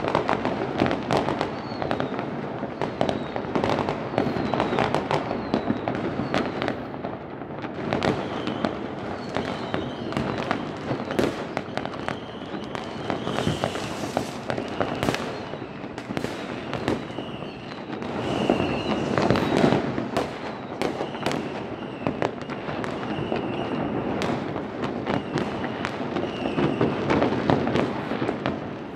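New Year fireworks going off all over a city: a continuous barrage of overlapping bangs from rockets and firecrackers, near and far, with occasional high whistles among them.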